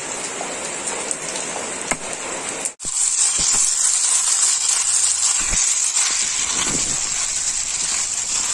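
Steady rushing water noise, cut off for an instant about three seconds in and then continuing brighter, with a few faint knocks.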